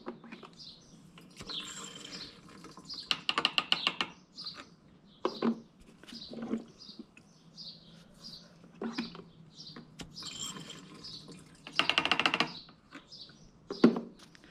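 Small birds chirping in the background, with a few single knocks and two short bursts of rapid clicks about three seconds in and again near twelve seconds, the loudest sounds here.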